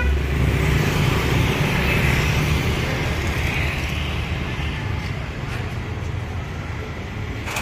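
Street traffic: a steady hum of passing vehicles that swells and fades as they go by.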